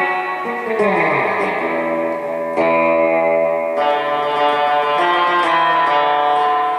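Fender Jaguar electric guitar on the bridge pickup, played through a Bassman-style tube amp with spring reverb. Ringing chords, with a pitch sliding down about half a second in, then new chords struck about two and a half and four seconds in.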